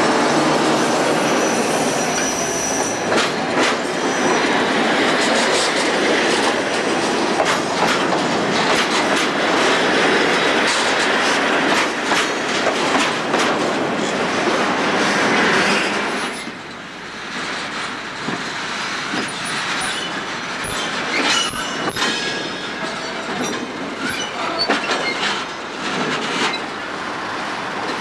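Covered freight wagons rolling slowly past close by, wheels clicking over the rail joints with brief high wheel squeals. The noise drops off a little past halfway, leaving scattered clicks and short squeals.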